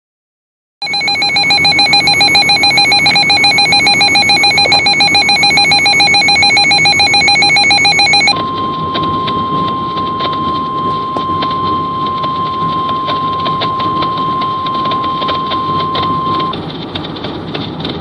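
Midland HH54 weather radio sounding its built-in alert, a loud, rapidly pulsing beep, for about seven seconds. It then switches to the NOAA Weather Radio 1050 Hz warning alarm tone, a steady single tone lasting about eight seconds, which marks a warning-level broadcast, here a Special Marine Warning. A low hum of road noise runs underneath.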